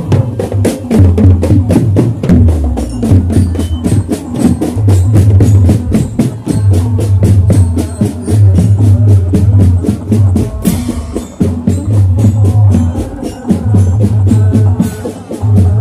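Loud, percussion-driven music for a barongan performance: a fast, even clicking beat of about five strikes a second over a deep, pulsing drum.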